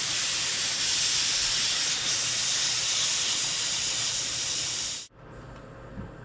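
Air hissing out of a dirt bike's rear tire inner tube through the open valve stem as the tire is deflated. It is a loud, steady hiss that stops abruptly about five seconds in.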